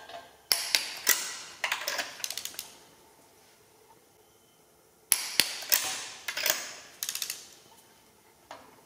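Click-type torque wrench tightening spark plugs to 22 ft-lb: two bursts of sharp metal clicks and ratcheting, one about half a second in and one about five seconds in.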